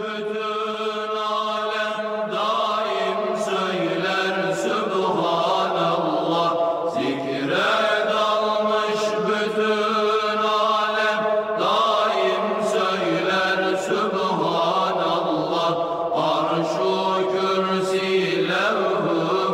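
Unaccompanied Sufi ilahi, voices chanting in long held notes that glide from one pitch to the next, over a steady low drone.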